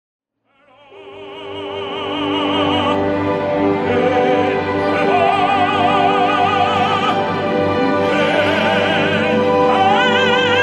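Operatic singing with a wide vibrato over an orchestral accompaniment, fading in over the first two seconds. The sung line changes pitch several times and climbs higher near the end.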